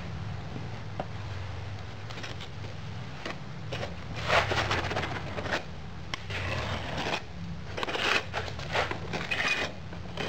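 A flat metal bar scraped across the top of a sand-filled moulding flask, striking off the excess moulding sand in several strokes over the second half, over a low steady hum.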